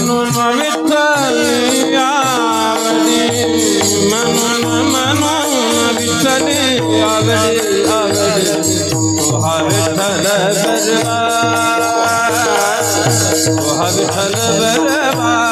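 Marathi devotional abhang singing: a male voice draws out long wordless melismatic runs over a steady held drone. A drum beats about twice a second, and hand cymbals keep up a constant metallic jingle.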